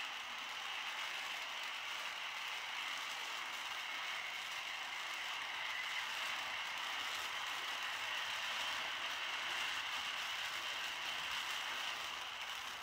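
Standard Fireworks Peacock fountain firework burning: a steady hiss of spraying sparks with a fine, dense crackle.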